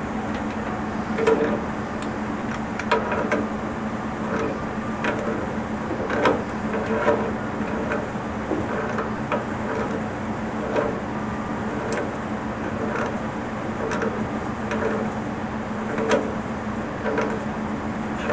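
Repeated short metallic clinks and knocks from black iron pipe fittings being handled and screwed together, over a steady low hum.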